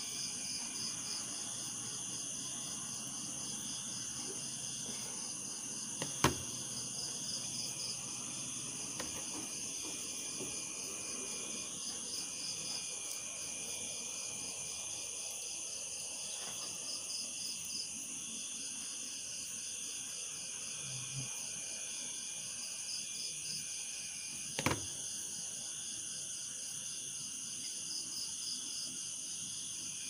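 Steady outdoor insect chorus, a continuous high buzz with a pulsing trill. Two sharp clicks stand out, one about six seconds in and another about twenty-five seconds in.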